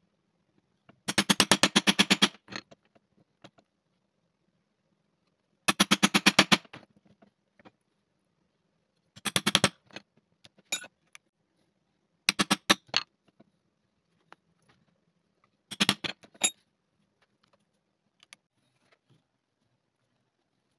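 A hammer rapidly tapping a steel stitching chisel through leather into a poly board, punching stitch holes, in five short runs of quick knocks with pauses between.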